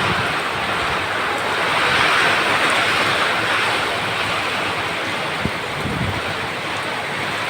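Heavy rain pouring down in gusty wind: a steady hiss that swells slightly about two seconds in, with wind rumbling on the microphone.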